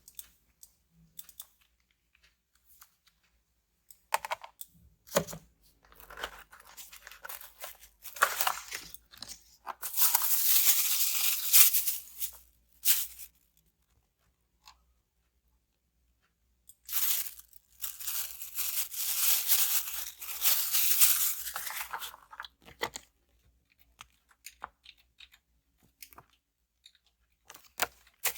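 Plastic packaging on a phone box being torn and peeled off in two long loud stretches, with small handling clicks and rustles in between.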